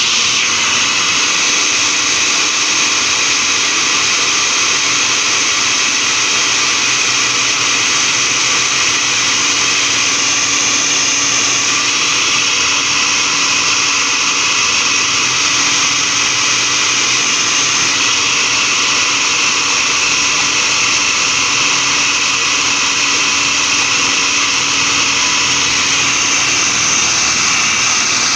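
Food processor motor running steadily at speed, its blade grinding raw chicken breast with carrot, onion and seasoning into a paste.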